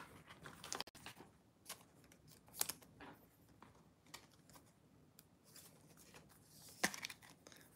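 Faint rustling of trading cards being handled, with a few short clicks, the sharpest about a second in and near the end.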